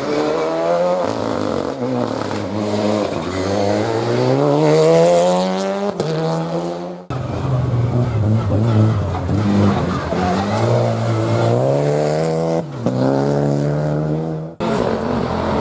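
Rally car engines at full attack, their note climbing through the revs and dropping at gear changes, in clips of different cars cut together about seven seconds in and again near the end.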